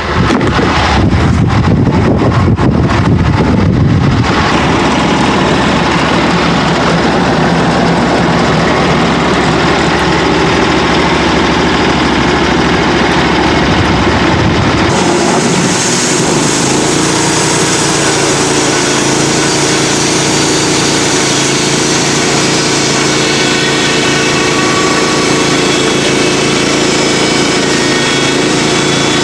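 An engine running steadily throughout, most likely a portable sawmill or the machinery handling the pine log. About halfway through the sound changes abruptly to a steadier hum with more high hiss.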